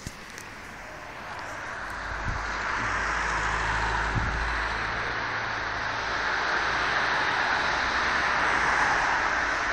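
Strong storm wind rushing through trees, building over the first few seconds and then holding steady, with low rumbling wind buffets on the microphone a few seconds in.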